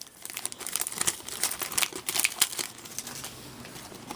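Crinkling of a foil trading-card pack wrapper and cards being handled, a run of short irregular rustles and clicks that thins out near the end.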